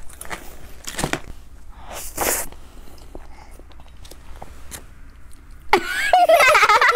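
A woman biting into a soft strawberry-topped cream cupcake and chewing, with small wet mouth clicks. Near the end she breaks into loud laughter with a wavering pitch.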